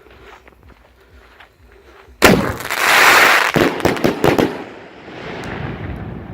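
A 4-inch firework mine going off: a sudden bang about two seconds in, a loud rushing hiss for about a second, then several sharp cracks, fading away.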